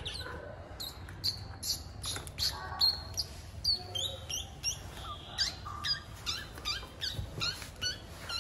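A long series of short, high, rising chirps from a small animal, a few a second, mixed with crinkling of a plastic bag.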